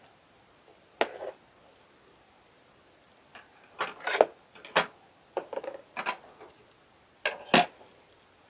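Drafting tools being handled on a drawing board: a scattered series of short, sharp clacks and taps of rulers and a scale being picked up and set down.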